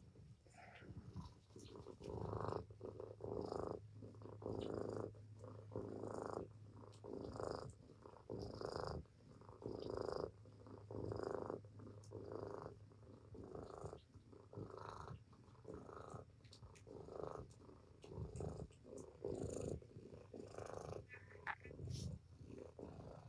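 Domestic mother cat purring while being stroked, a motor-like purr that swells and fades with each breath, about one and a half pulses a second.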